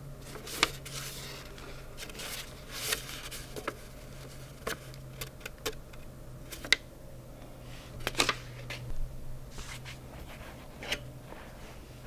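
A stiff paper card handled in the hands: scattered crisp crinkles, flicks and rustles, a dozen or so, irregularly spaced, over a low steady hum.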